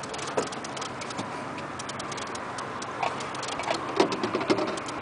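Fishing reel clicking as the angler works a big hooked goliath grouper on a heavily loaded rod, with a few sharper knocks about three to four seconds in. Wind and water noise run behind it.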